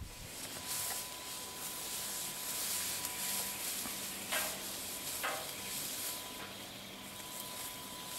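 Faint steady hiss with soft rustling of tall grass and brush, and two brief soft scuffs about halfway through, over a faint steady high tone.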